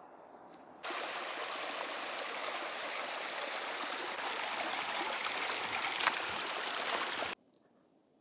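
Stream water rushing steadily, a dense even hiss that starts abruptly about a second in and cuts off sharply near the end.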